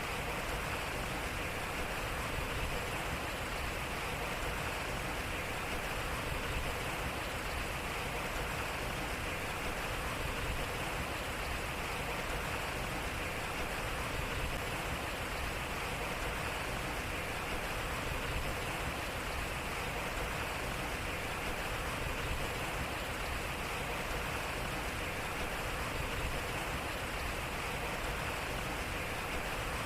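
Water running and splashing steadily at a turning waterwheel, an even rushing with no breaks.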